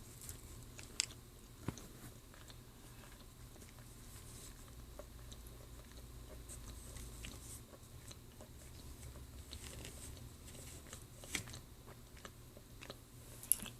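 A person quietly chewing a hard, crunchy food, with a few sharp crunches standing out between the softer chewing.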